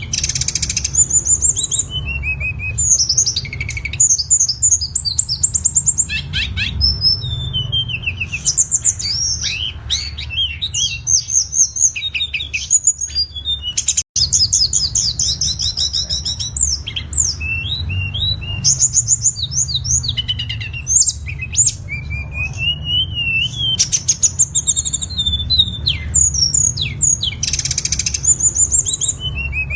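Tledekan (flowerpecker) song: a busy run of rapid, high-pitched chirps, trills and twittering phrases, broken by a short gap about fourteen seconds in. A steady low hum lies underneath.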